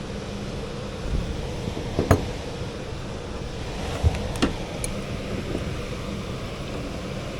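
A steady mechanical hum with background noise. Two sharp clicks, about two seconds in and about four and a half seconds in, and a dull knock just after four seconds.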